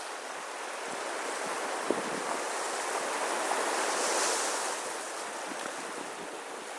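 Surf on a beach: waves washing in with a steady hiss that swells to a peak about four seconds in, then eases off.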